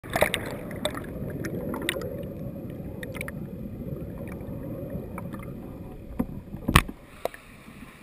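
Muffled rushing of river current and air bubbles heard with the camera underwater, dotted with small clicks and knocks. A sharp knock, the loudest moment, comes near the end as the sound fades.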